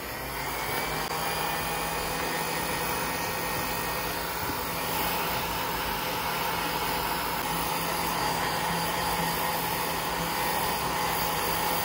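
Hot-air heat gun blowing steadily, its fan whirring, heating the glue under a synthetic-suede toe patch on a canvas sneaker to activate it.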